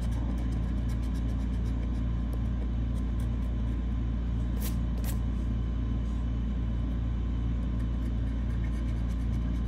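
A steady low rumble, with the light scrapes and ticks of a slim metal tool scratching the coating off a lottery scratch-off ticket; two sharper scrapes come about halfway through.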